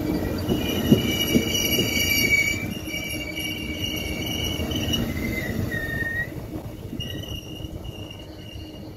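Amtrak Superliner passenger cars rolling past on steel rails, with high steady wheel squeal over a rumble and a couple of knocks about a second in. The squeal dips in pitch around the middle, and the sound fades as the last car pulls away.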